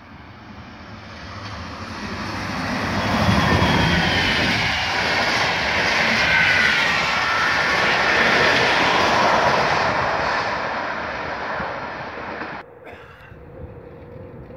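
A regional train of n-Wagen (Silberling) passenger coaches passes at speed. Wheel-and-rail noise swells to a loud pass-by with a faint falling whine, then dies away. Near the end it cuts off suddenly to a much quieter steady hum.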